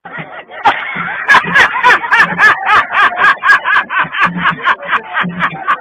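A man laughing loudly in rapid, rhythmic bursts of about four a second.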